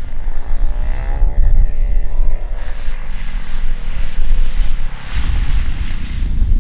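Propeller engine of a large-scale radio-controlled warbird running at low throttle on its landing approach, its pitch rising and then falling in the first two seconds. A heavy low rumble of wind on the microphone sits under it.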